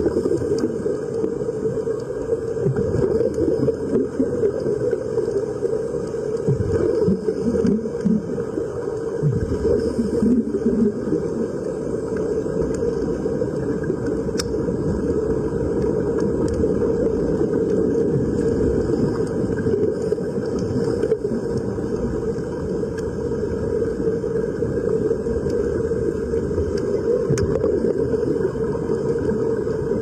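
Muffled underwater rumble picked up by a camera submerged in a waterproof case: a steady low noise with uneven swells in the first ten seconds or so.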